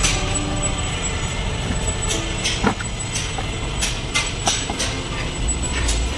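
Steady low vehicle rumble with scattered sharp metallic clicks and knocks throughout, and a faint steady high-pitched whine.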